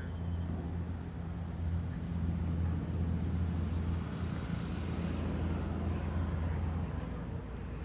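Vehicle engine running steadily with a low, even drone, with a faint hiss of road or wind noise.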